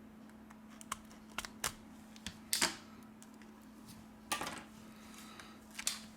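Scattered light clicks and snaps, two of them louder, as the middle frame of a Samsung Galaxy A31 is pried loose from the phone.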